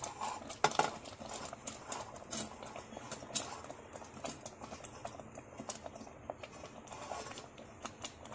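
Paneer cubes being pushed off a steel plate into a steel pot of simmering spinach gravy: a scattered run of light clicks and taps of the plate, cubes and ladle against the steel, over a steady hiss from the simmering gravy.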